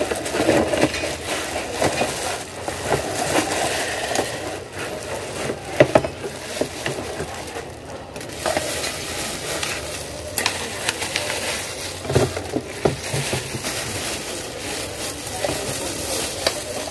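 Clear plastic wrapping crinkling and rustling as silicone spatulas are pulled out of a cardboard box and handled, with many small sharp clicks and crackles throughout.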